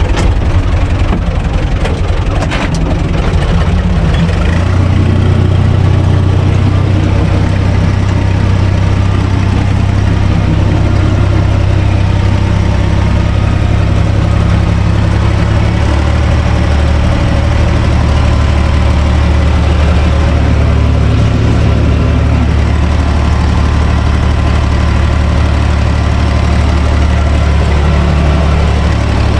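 A UTB Universal 445 DT tractor's diesel engine running steadily under way, heard from inside the cab. It picks up about four seconds in, and there are a few sharp clicks in the first three seconds.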